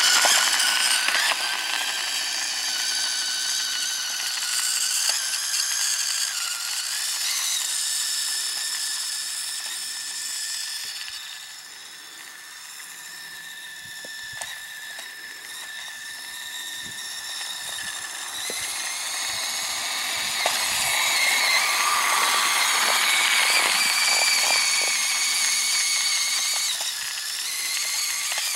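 Radio-controlled snowmobile built from Traxxas parts, its motor and gears whining at a high pitch as it drives through snow, the pitch rising and falling with throttle. The whine fades a little before halfway and grows louder again later.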